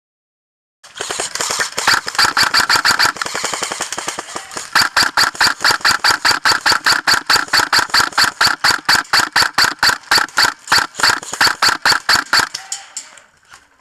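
Airsoft M4 rifle firing on full auto: long strings of rapid, sharp shots, several a second, with a brief pause in the middle and fewer shots near the end.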